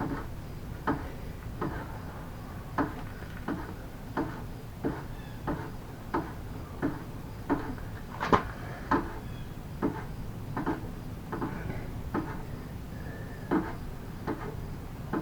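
Short sharp knocks from hand tools working on a mobility scooter's front hinge, repeating evenly about one and a half times a second over a low steady hum.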